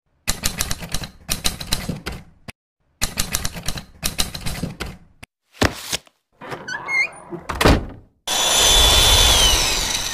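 Title-sequence sound effects: two runs of rapid typewriter-like key clicks, then a few quick whooshes and a sharp hit, ending in a long loud shimmering swoosh with falling tones.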